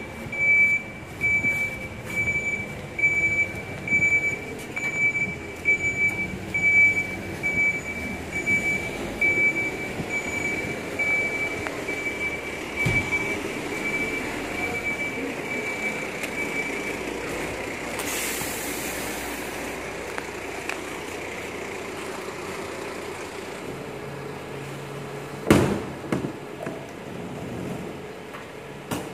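Volvo FE 300 refuse truck reversing, its back-up alarm beeping evenly a little over once a second over the running diesel engine. The beeping stops just past the middle, followed by a short hiss and, near the end, a loud knock.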